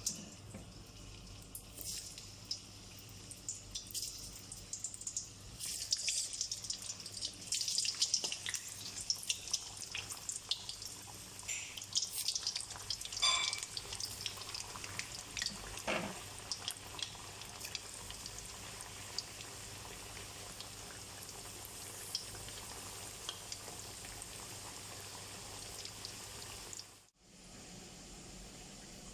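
Slices of eggplant and potato frying in hot cooking oil. Dense crackling and spattering pops through the first half ease into a steadier sizzle, and the sound cuts out briefly near the end.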